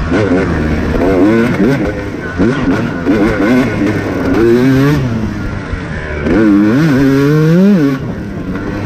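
Off-road racing dirt bike engine being ridden hard, its revs rising and falling quickly with throttle and gear changes. Near the end it revs up sharply and then drops off.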